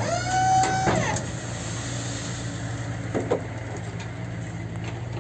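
Tipper truck's engine running steadily at idle while its tipping body stands raised on the hydraulic ram. A brief, steady, high-pitched whine sounds in the first second.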